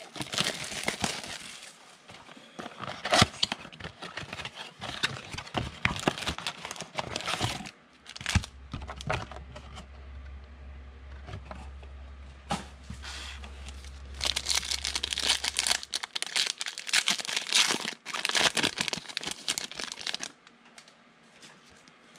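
Plastic wrappers of Donruss football card packs crinkling and tearing as the packs are opened. The crinkling comes in two busy spells with a quieter stretch in the middle, where a steady low hum sounds for several seconds.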